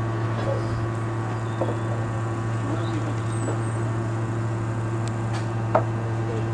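A steady low mechanical hum with a constant higher drone above it, and a single sharp click near the end.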